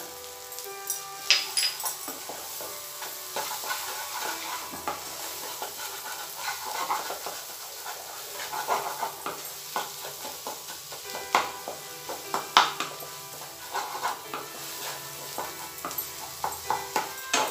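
Thick masala sizzling in oil in a nonstick kadai while a wooden spatula stirs it, scraping and knocking against the pan in irregular clicks. The masala has been fried until the oil separates from it.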